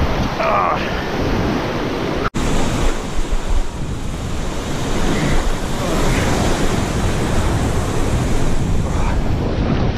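Ocean surf breaking and washing up over the sand, with wind buffeting the microphone. The sound drops out for a moment about two seconds in.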